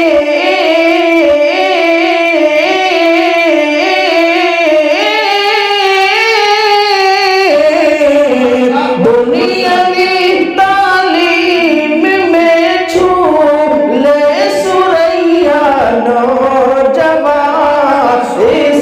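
A man sings Urdu verse in a melodic chant into a microphone and PA, holding long, wavering notes. About seven seconds in the melody drops lower and breaks into shorter phrases.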